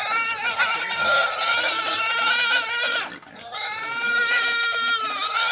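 Pig squealing: two long, high squeals, broken by a short pause about three seconds in.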